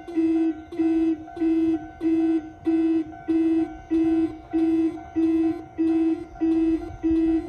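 Railway level crossing warning buzzer sounding a steady, evenly repeating low buzzing tone, about one and a half pulses a second. It is the crossing's alarm, signalling that the barriers are down for an approaching train.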